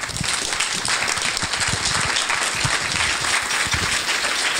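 Audience breaking into applause: many hands clapping at once in a dense, steady patter.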